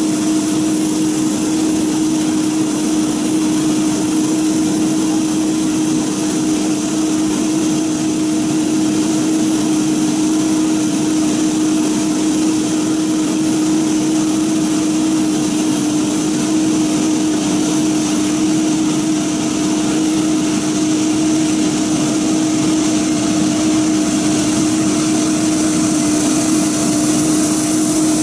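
Jet airliner engines running steadily at low power: a constant low hum with a thin high whine above it, unchanging throughout.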